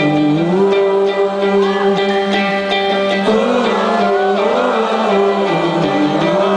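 Live rock band music: a wordless vocal melody is sung in long held notes over electric guitar and a steady low drone. This is the sing-along part being taught to the audience.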